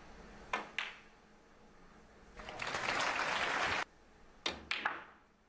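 Snooker cue striking the cue ball with a sharp click, the cue ball clicking into an object ball a moment later, then a short burst of audience applause that cuts off suddenly, followed by a few more ball clicks.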